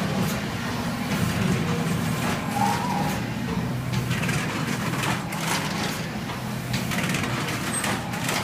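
Heidelberg SBD cylinder press running, a steady mechanical hum with repeated clacks from its moving parts.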